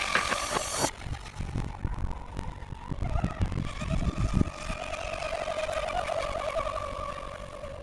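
A music track cuts off about a second in, then the high, steady whine of an electric RC rigger boat's motor running out on the water, over a low rumble.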